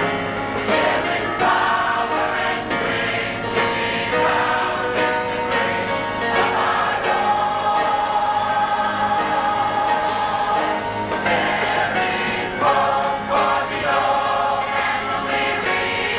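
Choir singing a gospel song in sustained, full-voiced harmony over a live band that includes electric bass.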